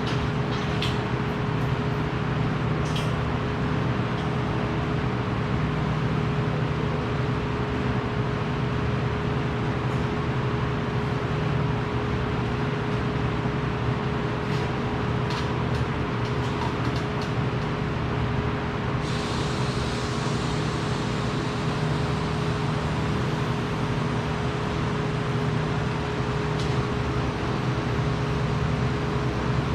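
Steady mechanical hum and rushing noise of running workshop machinery, holding one even level with a constant pitched drone and a few faint clicks.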